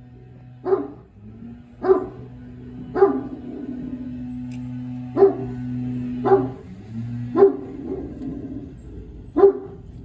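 Big dog barking: single deep barks spaced about one to two seconds apart, six in all.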